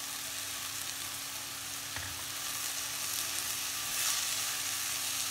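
Grated raw mango sizzling steadily in hot ghee in a pan, with sugar just added, as a silicone spatula stirs it through. A faint low hum runs underneath.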